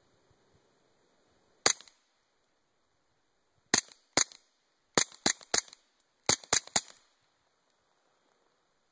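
Suppressed .22 LR pistol shots from a Sig Sauer Mosquito with a TAC65 suppressor, firing subsonic rounds. There are nine sharp cracks: one single shot, then a pair, then two quick strings of three. A fainter tap follows each shot a moment later.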